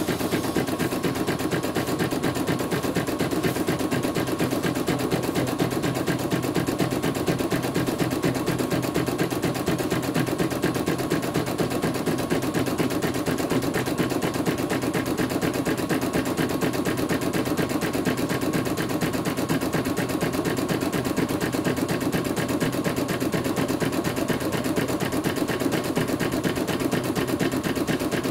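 CNY portable embroidery machine stitching a design at a fast, even rhythm, with the needle running steadily while the embroidery unit moves the hoop.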